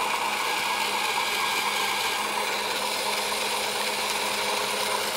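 Small electric motor of an egg-decorating spinner running steadily, turning an egg as it is painted, with an even hum.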